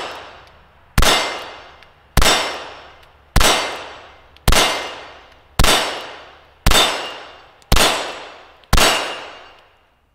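CZ vz.38 (Model 39) double-action-only pistol firing .380 ACP, eight evenly paced shots a little over a second apart. Each shot is a sharp crack followed by about a second of echoing decay.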